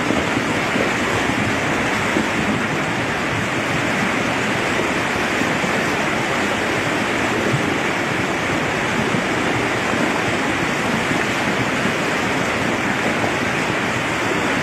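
Flash flood: a swollen stream of muddy floodwater rushing in a steady, continuous wash after several days of nonstop rain.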